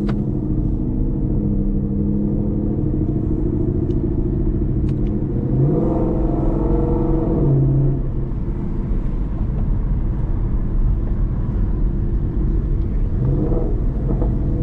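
Ford Mustang 5.0 V8 with a Corsa Extreme exhaust, heard from inside the cabin while driving. The engine runs steadily, its note rises as the car picks up speed about six seconds in, settles back after a couple of seconds, and rises again near the end.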